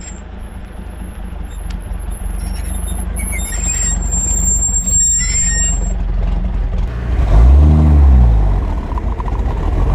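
A 1934 Lagonda M45's 4.5-litre Meadows straight-six engine running under way. Its note builds steadily and, about three quarters of the way through, swells up and drops back in pitch at its loudest.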